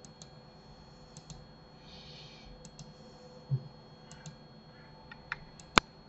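Sparse clicks of a computer mouse and keyboard, several in quick pairs, with one sharper click near the end and a soft low thump a little past the middle.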